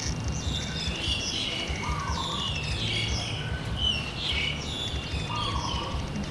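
Small birds chirping in many short, quick calls, over a steady low rumble.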